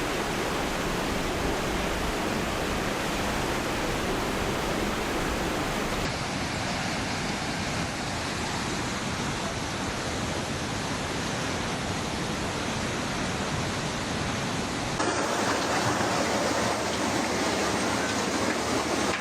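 Steady rushing of floodwater, a dense even roar with no pauses, over three clips that cut about six and fifteen seconds in; the last one is a little louder.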